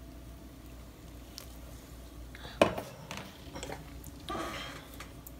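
Paper being handled on a desk as sticky notes come off a planner: a single sharp click about halfway through, then light paper rustling and a short scratchy peel about a second before the end.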